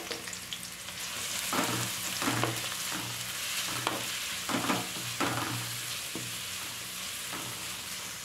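Sliced onions and green chillies sizzling in hot ghee and oil in an aluminium kadai, stirred with a spatula in repeated strokes that scrape across the pan. The sizzle swells about a second in, once the stirring begins.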